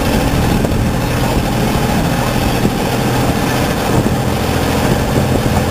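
Small passenger ferry's engine running steadily under way, a constant low hum with an even hiss over it.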